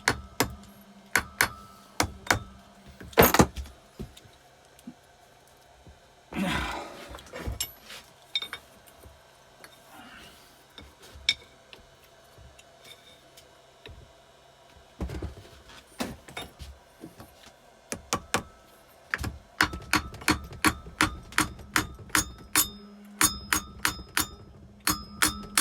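Metal hand tools working on a motorcycle engine: runs of sharp metallic clicks and taps, several a second, with a short scrape about six seconds in.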